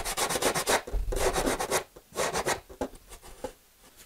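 Sandpaper on a hand sanding block rubbing along the edge of a foam fillet piece to trim it: a quick run of short strokes in the first second, then a few longer strokes that thin out and stop near the end.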